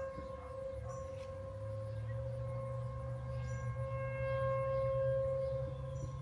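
American Signal T-128 outdoor warning sirens sounding one steady tone that slowly swells in loudness about five seconds in.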